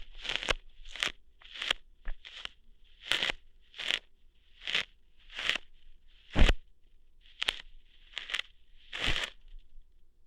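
ASMR ear-hair plucking sounds close to the microphone: about a dozen short crackly plucks, irregularly spaced roughly one every half-second to second. The loudest comes about six seconds in, and they stop just before the end.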